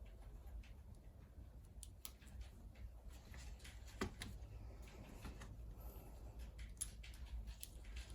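Faint scattered clicks of small Lego pieces being handled and pressed together, with one sharper click about four seconds in, over a low steady hum.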